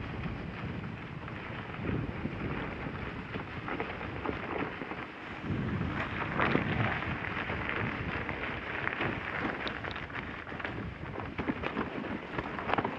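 Dog sled running over snow: a steady rushing and scraping from the runners, with wind buffeting the microphone and irregular small knocks and crackles.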